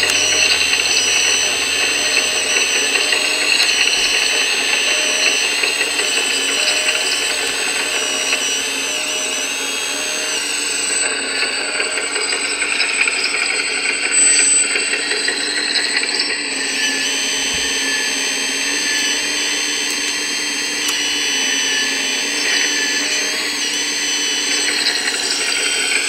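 Electric drive of an RC scale model excavator whining steadily as it digs and swings. Several high whining tones waver slightly up and down as the motors speed up and slow.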